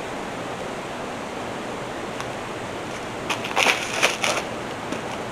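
Steady rushing outdoor noise, with a brief crunching rustle about three and a half seconds in.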